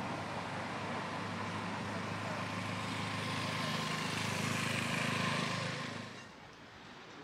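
A vehicle's engine passing by, growing louder to about five seconds in, then falling away quickly around six seconds.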